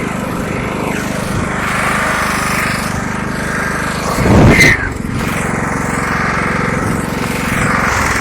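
Ride-on lawnmower engine running steadily. About halfway through there is a brief, louder burst over it.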